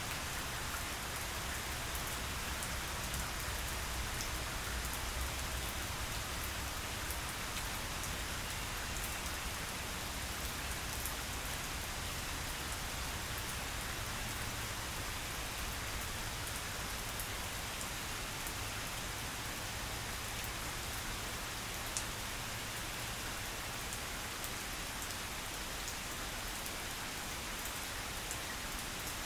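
Steady rain falling on a grass lawn, with scattered separate drop ticks and a low rumble underneath. One sharper tick about three-quarters of the way through.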